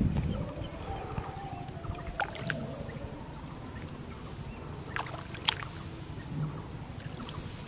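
A thud right at the start as a large fish lands in a plastic bucket, then a steady low outdoor rumble with a few sharp clicks.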